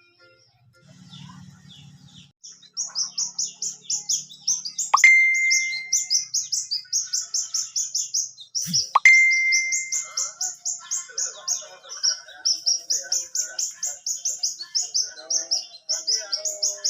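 Sunbird singing: a fast, steady run of short high chirps, about five a second. About a third and again half way through, there is a sharp click followed by a ringing tone that lasts about a second; these two are the loudest sounds.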